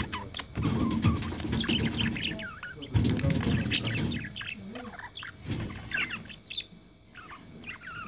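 Budgerigars chattering, a rapid run of short chirps and warbles from several birds, over bursts of low rumbling noise that come and go.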